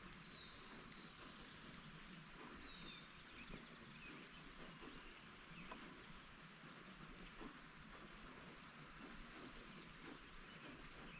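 Steady light rain falling, a soft even hiss with scattered small drips. Over it a high, faint chirp repeats evenly about twice a second, with a few faint falling bird-like calls.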